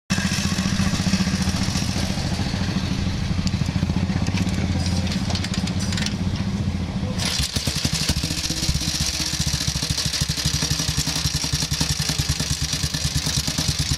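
Vintage motorcycle engine running, with a rapid, even train of firing beats. Its sound changes about halfway through.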